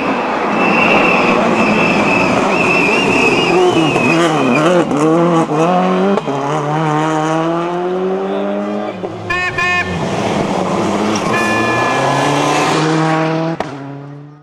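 World Rally Car engine at full throttle, its pitch swinging up and down and then climbing steadily as it accelerates through the gears, with tyre squeal during the first few seconds.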